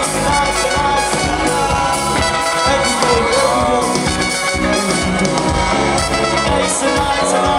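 Live band music played loudly, recorded from the audience, with a melody line over the band.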